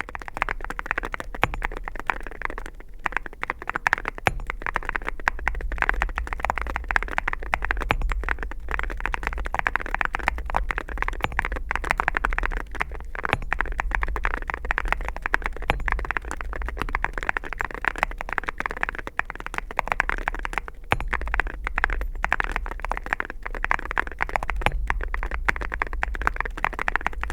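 Continuous fast typing on a QK65 mechanical keyboard with Awekeys metal keycaps over factory-lubed Durock Ice King linear switches on a POM plate, gasket-mounted: a dense, steady stream of keystrokes.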